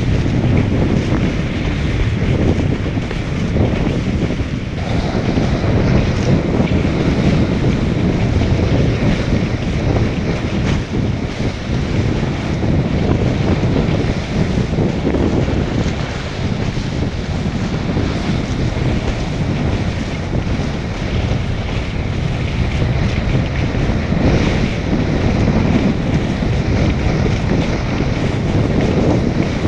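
Wind buffeting the kitesurfer's action-camera microphone, mixed with water rushing and spraying under the kiteboard as it planes across the sea. A loud, steady, deep rushing noise.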